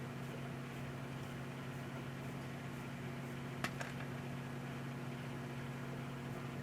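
Emerson microwave oven running with a steady hum, and a single sharp pop a little past halfway, with a weaker one just after, as popcorn kernels burst inside.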